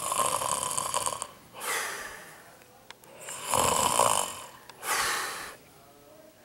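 A man snoring in his sleep: four snoring breaths of about a second each, one after another, then a short pause near the end.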